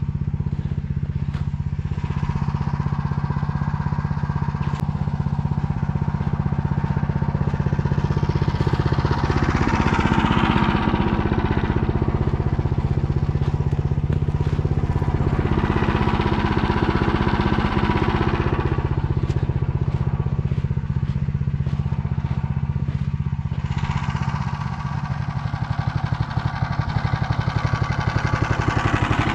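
Motor Sich engine running at a steady speed, its low note unchanged throughout, with a higher hiss swelling up and fading three times over it.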